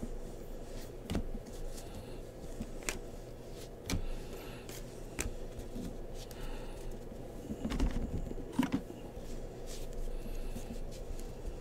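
Baseball trading cards being handled and sorted by hand, with scattered light clicks and taps as cards slide and knock against the stack and the table, a couple of louder ones near the end. A faint steady hum runs underneath.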